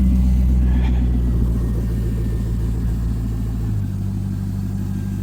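LS1 V8 engine running at a steady fast idle, its speed dropping a step about four seconds in.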